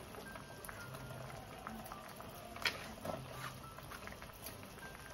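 Fish stew broth simmering in a wok: a low steady bubbling with many small pops, and one sharper tick about two and a half seconds in.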